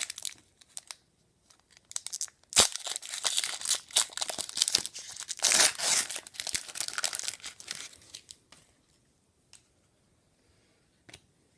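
A hockey trading card pack wrapper being torn open and crinkled, in several rustling bursts with a sharp snap about two and a half seconds in. It fades out after about eight seconds, leaving a few faint ticks of cards being handled.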